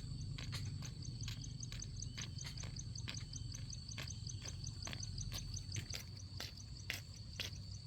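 Insects chirping in a steady, rapidly pulsing high trill, with irregular sharp clicks or snaps every half second or so over a low steady rumble.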